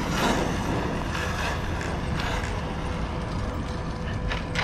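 Arrma Kraton EXB RC truck running, its motor giving a steady whine with scattered sharp clicks from the drivetrain. The owner suspects grinding internals or the new rear diffs.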